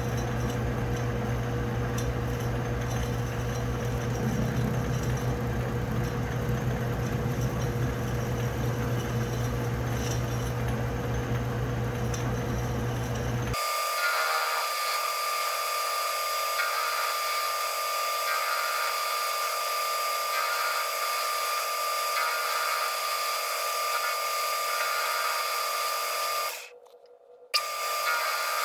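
Metal lathe running steadily during a cut. About halfway through the sound changes abruptly to a thinner hum with a steady whine, and it drops out briefly near the end.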